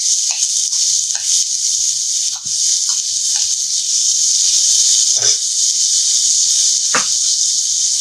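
Onions, green chillies, beans, carrots and garlic sizzling steadily in a hot stainless-steel skillet, with a few light knocks and scrapes as a metal spoon stirs them.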